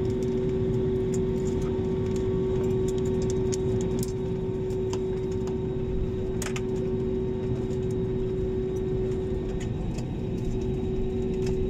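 Cabin noise of an Airbus A320-family jet taxiing after landing: a steady low rumble from the engines and wheels under a constant mid-pitched hum. Scattered light clicks and rattles come from the cabin, with the sharpest about four and six and a half seconds in.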